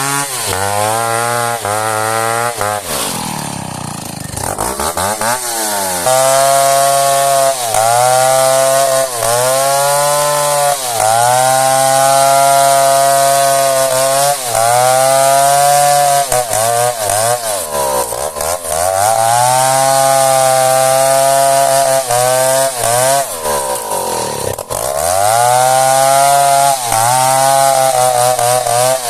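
Chainsaw cutting a hard, decades-old merbau log. The engine note sags under load and climbs back every second or two, dropping right down twice: about four seconds in and again near twenty-five seconds.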